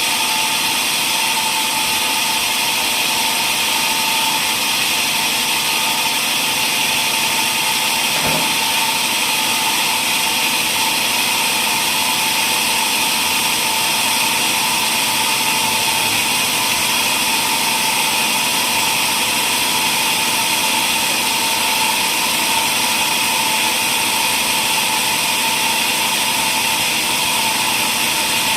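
Woodworking machine running steadily with a constant whine, and a single brief knock about eight seconds in.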